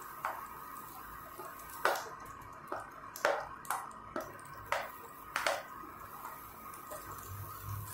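Pieces of fried onion and capsicum being pushed off a plate into a pan of thick gravy: about nine or ten soft plops and light clicks, spaced unevenly, with a faint steady hum beneath.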